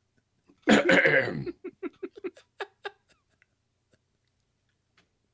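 A person's burst of laughter about a second in, breaking into a run of short, rapid laughs about four a second that stop near the three-second mark.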